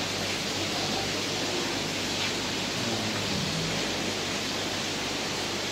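Steady rushing hiss of water and air from the filtration and aeration of many aquarium tanks, even and unbroken.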